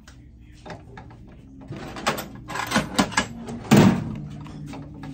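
Knocks and clatter from hands working the parts of a manual metal lathe, building to a burst of several sharp knocks and one heavy thunk about four seconds in, over a low steady hum.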